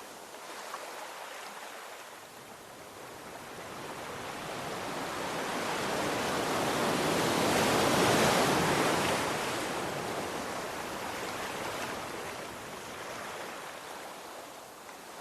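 Sea waves washing on a shore: one wave swells up, is loudest about eight seconds in, then washes back and fades.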